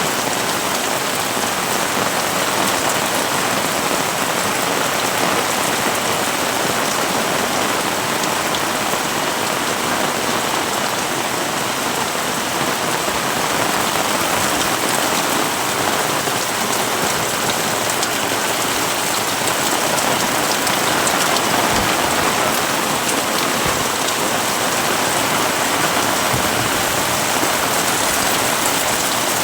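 Heavy rain falling steadily: a dense, even hiss of countless drops striking surfaces, with no let-up.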